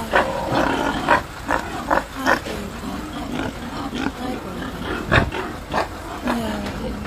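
Pigs crowded in the slatted crate of a livestock truck, grunting: short grunts come about every half second, with a louder one about five seconds in.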